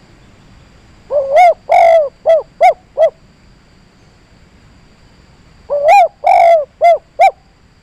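Dove cooing in the 'kuk 3' song style: two phrases a few seconds apart. Each phrase is a rising double note, one longer coo, then three short clipped coos.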